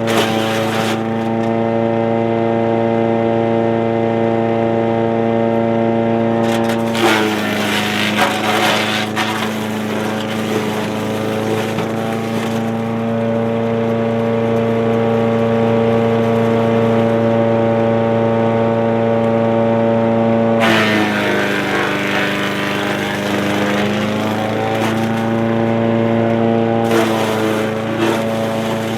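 Wood chipper's 212 cc single-cylinder gas engine running steadily at speed, its pitch sagging under load as branches are fed in and shredded with a rough crunching noise: once about 7 seconds in, again for several seconds from about 20 seconds, and briefly near the end.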